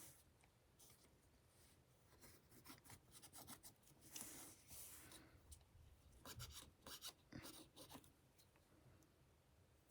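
Faint scraping and rubbing as old screen adhesive is worked off an iPhone 7's frame, in irregular strokes with scattered small clicks.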